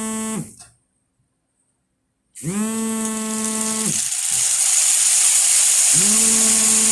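Recorded rain sound effect: a steady hiss of falling rain fades in about two and a half seconds in and keeps building. Short, steady buzzing tones, each about a second and a half long, sound over it: one at the start, another as the rain begins, and a third near the end.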